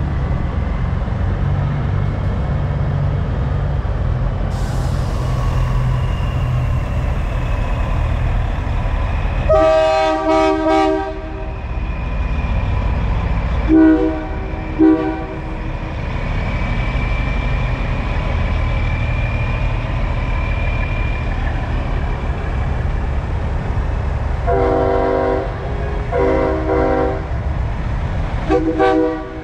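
Semi trucks' air horns blown in chord blasts: a long one about ten seconds in, two short toots a few seconds later, then two more blasts and a short one near the end. Underneath is the steady low rumble of big-rig diesel engines pulling away.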